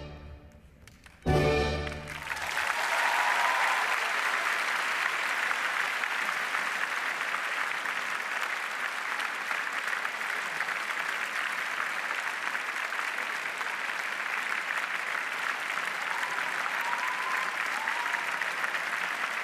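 Orchestral ballet music ends on a short final chord about a second in, then a theatre audience breaks into steady, sustained applause.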